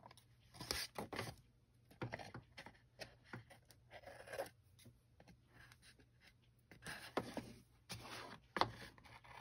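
Small craft scissors snipping washi tape along the edge of folded cardstock: faint short cuts at irregular intervals, with the paper rustling as it is handled between them.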